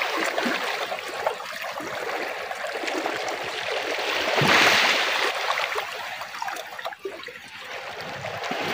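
Small sea waves washing and lapping over shoreline rocks, a steady rush that swells to a louder surge about halfway through.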